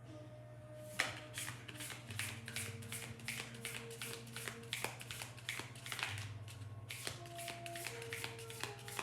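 A deck of tarot cards being shuffled by hand: a quick run of soft card slaps and rustles starting about a second in, easing off briefly before the shuffling picks up again.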